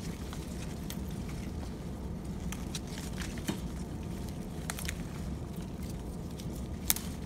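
Pepper plant leaves and stems rustling and crackling as a hand pushes through them, with scattered light clicks and one louder click near the end, over a steady low rumble.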